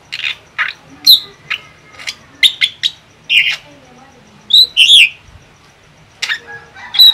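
Drongo singing: an irregular string of sharp chirps and short whistles, some sliding up or down in pitch, with the loudest bursts about a second in, around the middle, and just before the end.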